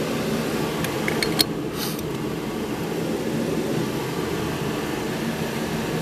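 Steady fan-like hum throughout, with a few light clicks and a short rustle in the first two seconds as the old shift lever of a BMW E46 is worked out of the centre console.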